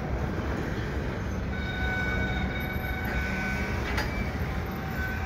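Freight train moving slowly in a rail yard during switching: a steady low rumble, with a thin wheel squeal for about two seconds and a single sharp knock about four seconds in.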